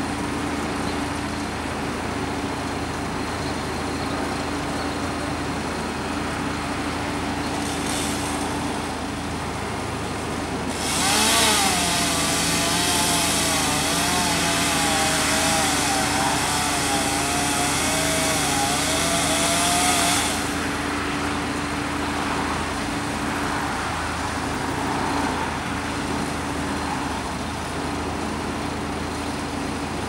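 A chainsaw is run at high revs for about nine seconds, its pitch wavering as it cuts, then it stops abruptly. Underneath is the steady hum of an idling truck engine.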